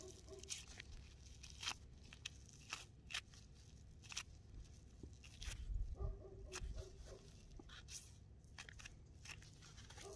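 Knife cutting a tough tendon out of an elk rib roast: faint crunching and tearing with scattered small clicks.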